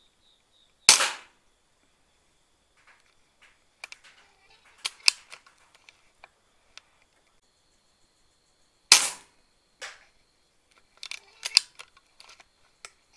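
PCP air rifle fired twice, about eight seconds apart, each shot a sharp crack. A few seconds after each shot comes a scatter of small clicks and knocks.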